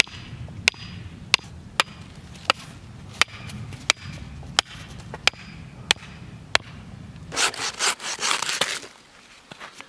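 A wooden stake being driven into the ground with a hatchet: a steady run of sharp wooden knocks, about three every two seconds. Near the end, a burst of quick strokes from a hand pruning saw cutting through a log.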